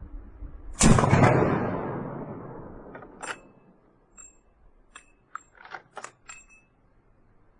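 A single lever-action rifle shot about a second in, its report trailing off in a long echo. Then the lever is worked, several short metallic clicks and clacks as the action is cycled.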